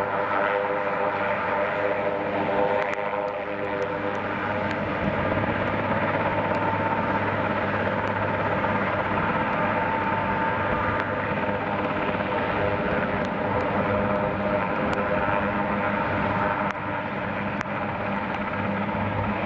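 Swiss Air Force AS532 Cougar helicopter running on the ground while taxiing: its twin turboshaft engines give a steady turbine whine over the continuous noise of the turning main rotor.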